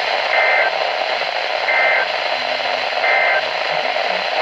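NOAA Weather Radio's SAME end-of-message data tones: three short, identical, high-pitched warbling bursts about a second and a half apart, marking the end of the tornado warning broadcast. A steady receiver hiss lies underneath.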